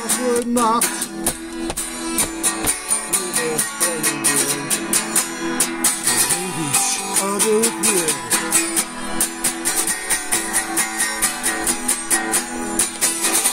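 Strummed guitar music with a quick, steady rhythm, with a few wavering, bending notes over it near the start and again about halfway through.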